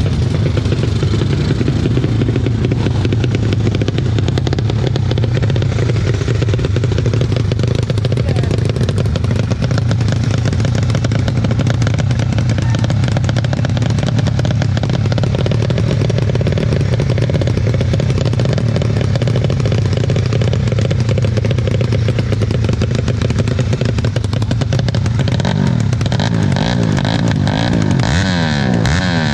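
Motorcycle engines running steadily. Over the last few seconds a pitch sweeps up and down over the drone.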